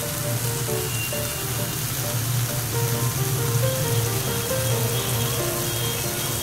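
Instrumental background music with a simple stepping melody, over a steady sizzle of food frying in a pan.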